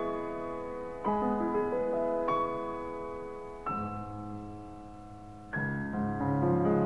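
Slow solo piano music: chords struck every one to two seconds, each left to ring and fade before the next.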